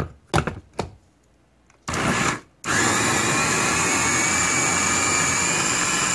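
Electric food chopper with a push-down motor head chopping fresh shepherd's purse greens in its bowl. After a couple of clicks as the motor head is seated, the motor gives one short pulse about two seconds in, then runs steadily with a whine from just before three seconds in.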